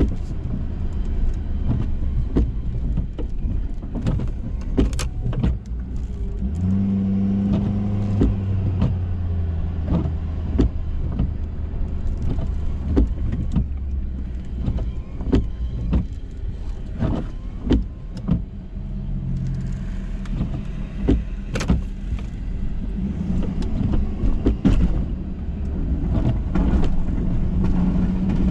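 Ford F-350 pickup with a Boss snow plow running while plowing, with many sharp knocks and clunks scattered through. A louder humming tone comes in for a couple of seconds about seven seconds in, and again briefly near the end.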